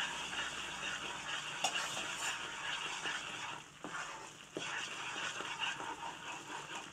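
Gram-flour and sugar-syrup mixture for Mysore pak sizzling and frothing in a nonstick kadai as freshly added hot oil bubbles through it. A wooden spatula stirs and scrapes through the mixture, with a few light knocks against the pan.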